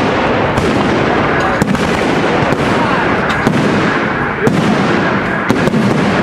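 Fireworks display going off: a continuous mass of crackling and popping, with a few sharper bangs scattered through it.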